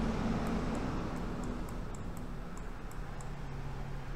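Steady room hum with faint, scattered ticks from a computer mouse being clicked and scrolled while a drawing is panned and zoomed on screen.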